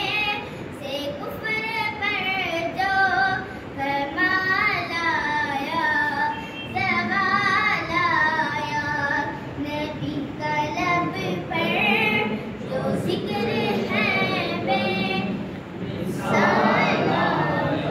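A young boy singing a naat, an Urdu devotional song, without accompaniment. His high voice bends through long ornamented phrases with short breaks between lines. About two seconds before the end the singing gives way to a louder, denser stretch of mixed voices.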